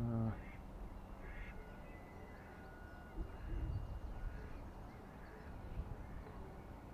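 Ducks quacking: one loud quack right at the start, then fainter calls, over a low rumble of wind on the microphone.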